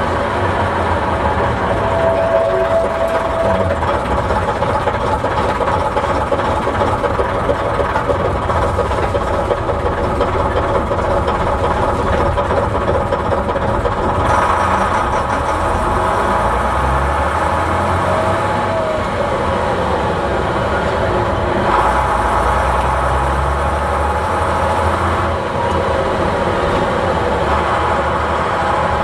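Bristol VR double-decker bus's rear-mounted Leyland diesel engine running steadily, heard from inside the passenger saloon, its low note shifting a few times.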